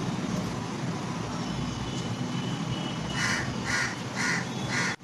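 A crow cawing four times in quick succession, about two caws a second, in the second half, over a steady background hum.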